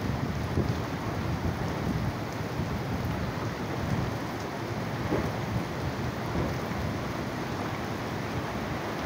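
Heavy cyclone rain pouring steadily onto flooded ground and trees, with a dense low rumble underneath.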